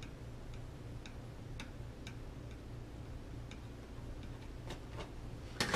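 Light, irregular clicks and ticks of a small metal putty knife against a wooden rifle stock as filler is pressed into sunken dowel spots, about two a second, with the sharpest click just before the end. A steady low hum runs underneath.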